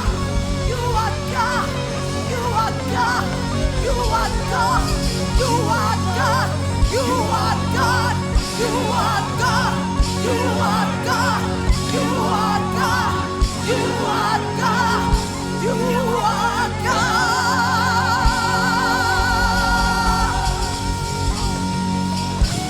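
Church worship band playing, with a steady bass line, regular drum thumps and a winding melodic lead over it. Singing is heard, and a long note with vibrato is held about three-quarters of the way through.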